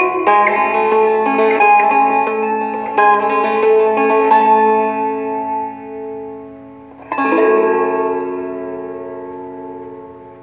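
Martin Backpacker travel guitar fingerpicked, a melody of single notes over held bass notes. About seven seconds in a final chord is struck and rings out, slowly fading.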